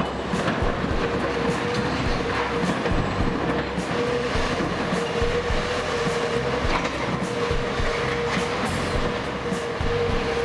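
Heavy diesel earthmoving machinery running hard, with a steady hum held throughout over a low rumble and scattered metallic clanks.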